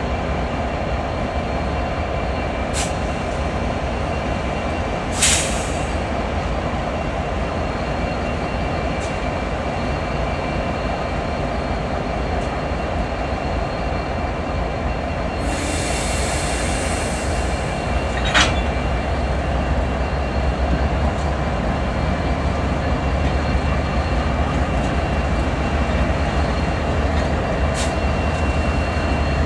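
Norfolk Southern diesel locomotives rolling slowly past: a steady low engine rumble with faint high steady tones. A short hiss comes about five seconds in, a longer hiss about fifteen seconds in, and a single sharp clank about eighteen seconds in. The sound grows a little louder toward the end.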